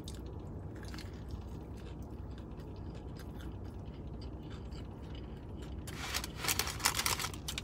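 Close-up chewing of a fried fish sandwich, with small wet clicks over a steady low hum. About six seconds in comes a louder stretch of crisp crackling.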